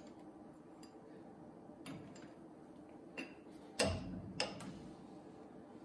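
A handful of faint clicks and knocks from the surface grinder's table travel stops being moved and set by hand. The loudest knock comes about four seconds in.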